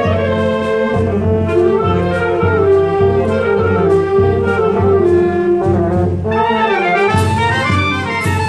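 Wind band of clarinets, saxophones and brass playing a piece with a steady beat. About six seconds in, the music moves into a fuller, brighter phrase.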